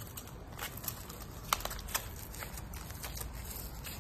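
Faint handling of crystal lamp parts and their foam wrapping: soft rustling with a few light clicks around the middle.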